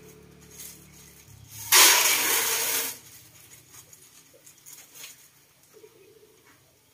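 Popcorn kernels poured into hot cooking oil in an aluminium pot, setting off a loud sizzle that lasts about a second and stops sharply. Faint scattered ticks follow.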